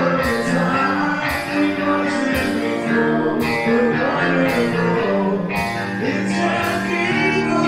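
Live horror punk band playing loud through a PA: distorted electric guitar, bass and drums, with a male voice singing over it. A cymbal or snare hit lands about once a second.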